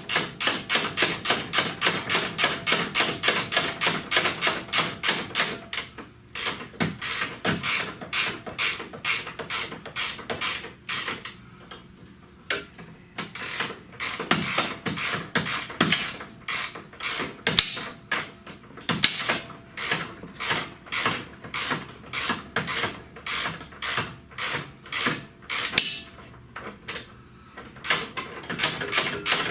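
Hand ratchet wrench clicking in quick back-and-forth strokes, about three clicks a second, pausing briefly a few times.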